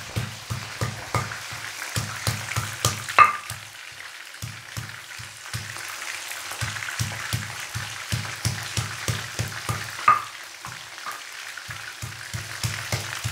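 Pieces of mackerel tuna deep-frying in hot oil in a wok, sizzling with steady crackling and rapid popping of about three to four pops a second. Two louder sharp clicks come about three seconds in and again about ten seconds in.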